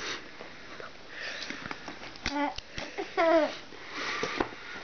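An 11-month-old baby babbling: two short pitched vocal sounds in the middle, the second one wavering, with breathy sniffing sounds before and after and a small tap just before the first.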